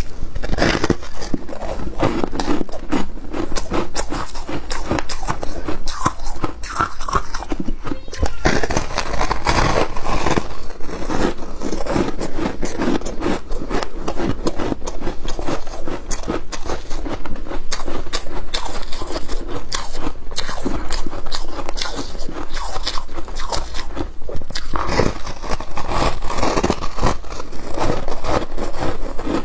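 Foam ice topped with flaked ice being chewed close to the microphone: a dense, unbroken run of crunches and crackles.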